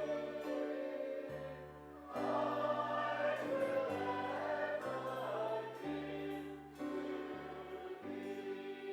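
Hymn music with choir-like singing: held chords over a bass line that steps from note to note.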